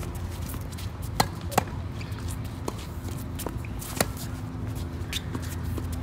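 Tennis rally on a hard court: sharp pops of racket strikes and ball bounces, a few each second or two, the loudest a racket hit by the near player about four seconds in.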